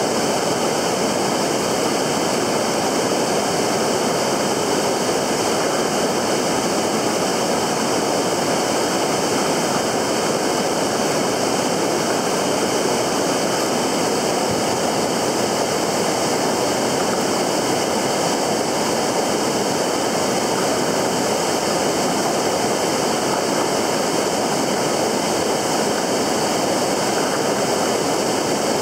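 Steady rush of fast-flowing river water, an even unbroken noise that does not change.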